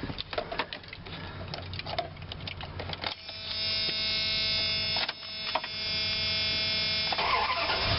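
Car being started on a newly fitted battery: a few clicks, then from about three seconds in a steady motor whine. The whine comes in two stretches of about two seconds each, with a brief break between.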